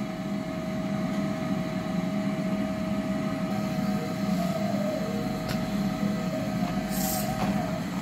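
Canister vacuum cleaner running steadily, a constant hum with a steady whine above it, while its floor nozzle is pushed over carpet tiles. A brief hiss comes near the end.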